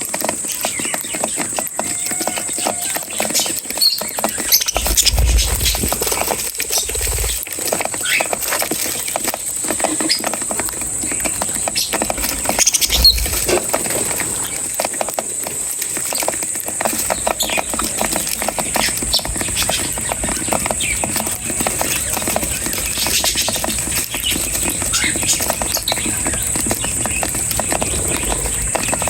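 Small birds chirping and squeaking at feeding time, over a dense patter of small clicks and scratches, with a steady high-pitched hiss throughout.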